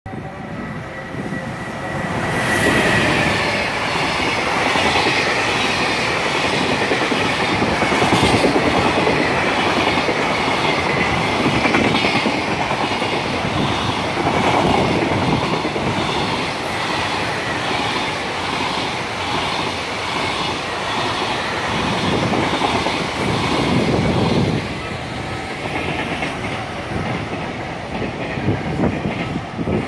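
A JR Freight EF210 electric locomotive passes at speed with a long train of container wagons. There is a high whine that sinks slightly in pitch about two seconds in, then the wagons' wheels clatter in a steady rhythm. The sound eases off near the end as the last wagons go by.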